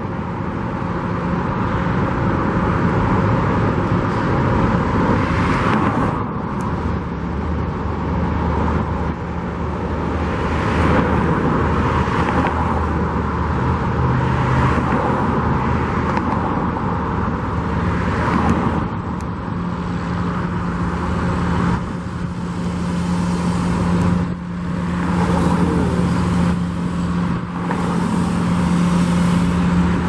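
Road traffic going by in a steady stream, cars swelling and fading one after another every few seconds, over a low engine hum that grows stronger about two-thirds of the way in.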